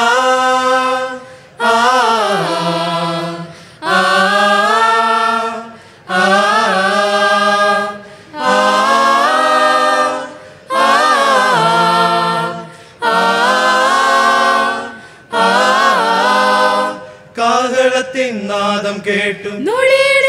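Mixed men's and women's vocal group singing a Malayalam Christian song a cappella in harmony. It comes as a run of short held chords, a new phrase about every two seconds, with no clear words.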